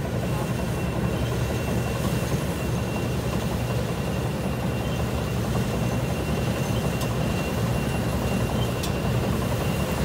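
New Holland Clayson combine harvester's diesel engine and threshing machinery running with a steady low drone while harvesting rice, with a thin steady high whine above it.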